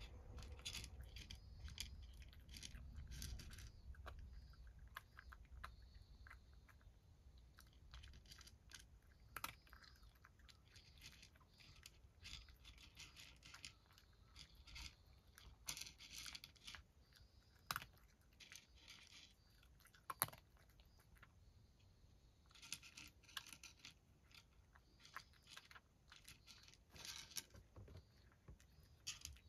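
A cat crunching dry kibble: faint, crisp crunches coming in quick runs with short pauses between them.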